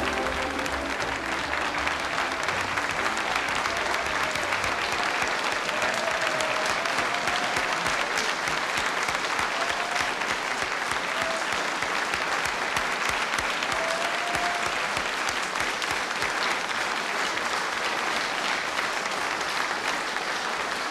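A studio audience applauding steadily throughout, welcoming a guest on stage.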